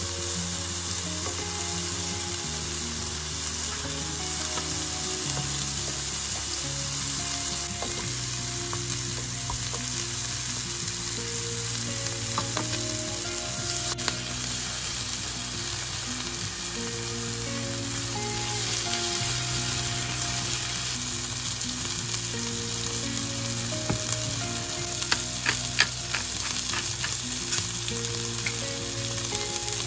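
Sliced sausage, mushrooms, asparagus and cherry tomatoes sizzling steadily in a hot oiled nonstick frying pan as they are stirred and turned with a spatula. A few sharp taps of the spatula on the pan come near the end.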